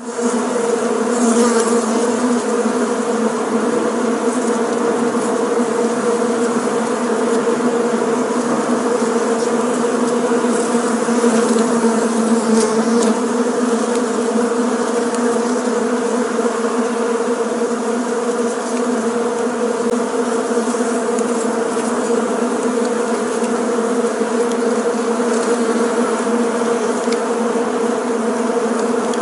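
Bees buzzing in flight: a steady, continuous drone of many wingbeats with a low hum and its overtones.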